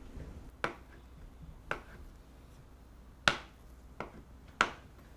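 A series of five sharp, separate knocks or clicks at irregular intervals, the loudest about three and four and a half seconds in.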